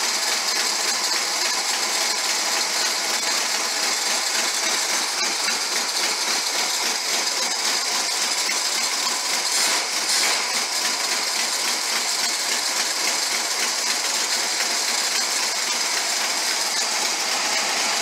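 Pontiac Firebird's carbureted engine running steadily with the air cleaner off, the carburetor open on top.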